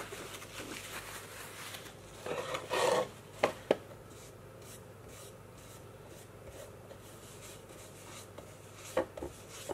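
Shellac pad (cloth wrapped around foam) being rubbed over wood veneer in French polishing, a series of soft rubbing strokes. There is a louder scrape about a quarter of the way in, and a few sharp clicks: two just after that and two near the end.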